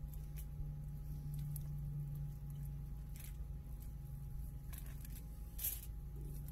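Soft handling sounds of a gloved hand stuffing shredded vegetables into a whole snapper on aluminium foil: a few short crinkles and rustles, the sharpest about five and a half seconds in, over a steady low hum.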